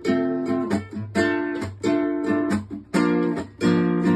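Guitar strumming chords in a steady rhythm, with each chord ringing on between strokes: the instrumental introduction to a song, before the singing comes in.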